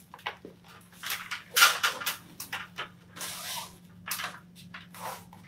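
Vinyl safety flooring being pressed and rubbed into an inside corner of a coved upstand by a gloved hand and hand tool: a run of short, irregular scraping and rustling strokes, with one longer rub about three seconds in.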